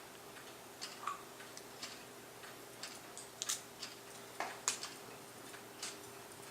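Scissors snipping through a plastic credit card: faint, irregular short snips and clicks, a few louder ones about halfway through, over a steady low hum.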